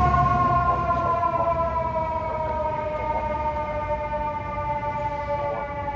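Fire engine's mechanical siren sounding one long wail that slowly falls in pitch as it winds down, growing fainter as the truck drives away.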